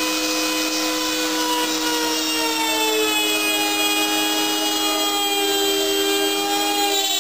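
Router spindle of a homemade CNC machine running and cutting, a steady high whine over the hiss of the bit in the wood. The whine dips slightly in pitch about three seconds in, then the sound cuts off suddenly at the end.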